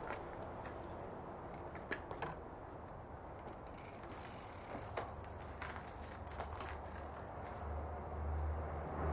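Scattered light clicks and rattles from a Dahon folding bicycle as it is mounted and pedalled off, over a steady low rumble that grows louder near the end.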